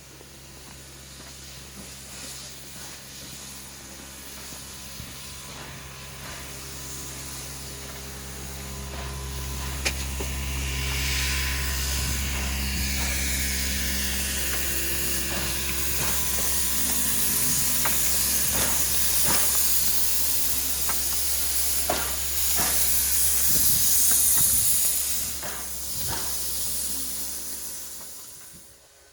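Steam locomotive venting steam with a steady hiss that builds up over several seconds and then falls away near the end, with a few scattered knocks and clanks.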